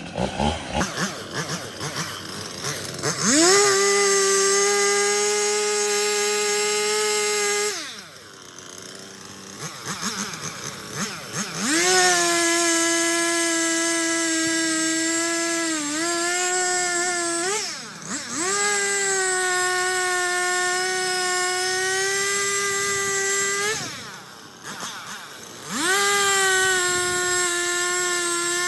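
Stihl two-stroke chainsaw revved to full throttle four times, each time held for several seconds as it cuts, the pitch sagging briefly under load, then dropping back to a rough idle between cuts.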